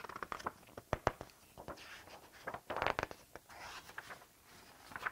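Paper rustling and scraping with a few sharp clicks: the pages of a picture book being handled and turned.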